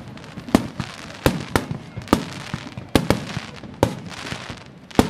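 Aerial fireworks bursting in a rapid, irregular string of sharp bangs, about eight in five seconds, each followed by a short echo, with crackling between the reports.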